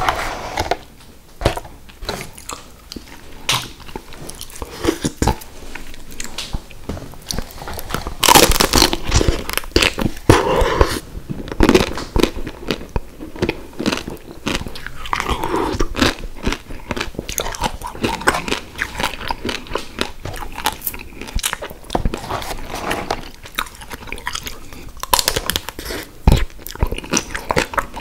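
Close-miked biting and chewing of a chocolate-dipped soft-serve cone: the hard chocolate shell crunches and cracks, with wet mouth sounds between bites. The crunching comes in irregular bursts, loudest a third of the way through.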